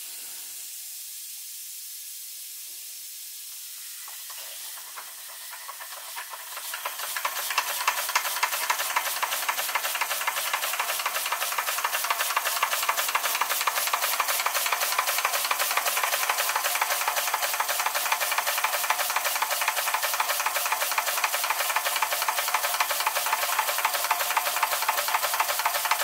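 Doll 365/1 twin-cylinder toy steam engine on live steam, a steady hiss of steam at first. From about six or seven seconds in it runs fast, with rapid, even exhaust beats, while belt-driving a Baker fan.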